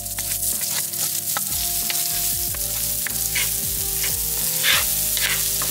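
Chopped onion sizzling in oil in a nonstick frying pan, stirred and scraped around with a wooden spoon. There is a steady hiss of frying, with several louder scraping strokes in the second half.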